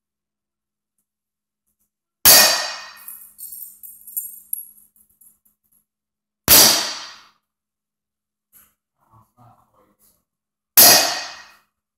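Three hammer blows on a center punch, about four seconds apart, marking hole centres in the metal face plate of a gasifier carburetor adaptor. Each strike is a sharp metallic clang that rings briefly, with a few light metal clinks after the first.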